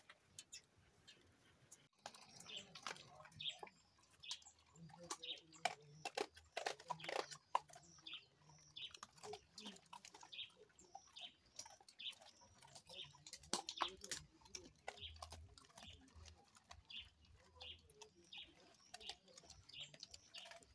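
A pack of German Shepherds eating off the ground, making a run of small chewing and crunching clicks. Short high bird chirps repeat behind them.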